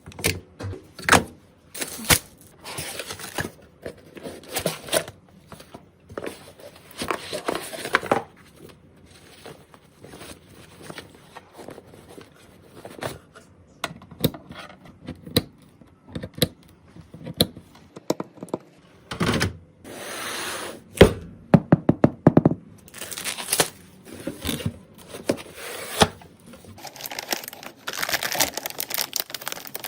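Computer parts and their packaging being handled during a PC build: irregular clicks, knocks and thunks, with stretches of rustling and crinkling packaging.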